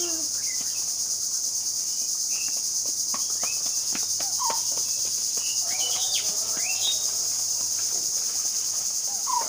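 Steady, high-pitched drone of insects, with short bird chirps scattered through it, most of them in the middle.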